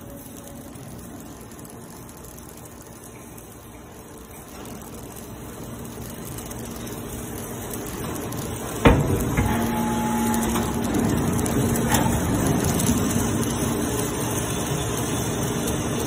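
MQ160 hydraulic scrap-metal baler at work, growing steadily louder. A sharp metal clank comes a little over halfway through, then a steady hum with a low held tone and another clank as the press closes on loose metal turnings.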